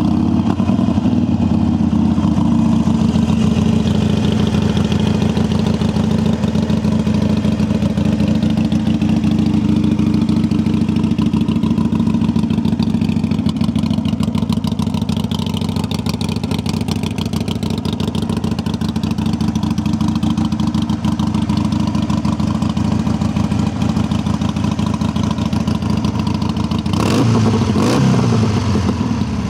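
A 2016 Harley-Davidson Sportster 883 Low's fuel-injected V-twin idling steadily through staggered Vance & Hines exhaust pipes. It is revved briefly near the end.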